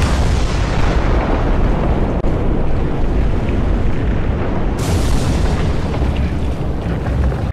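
Volcanic-eruption sound effect marking the end of the countdown: a sudden loud blast that runs straight into a continuous deep rumble, with a fresh hissing burst about five seconds in.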